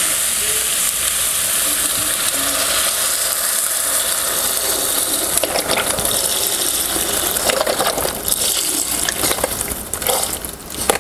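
Beef broth pouring in a steady stream from a carton into a hot enamelled cast-iron Dutch oven of vegetables and black-eyed peas, gushing and splashing. The pour tails off and stops near the end.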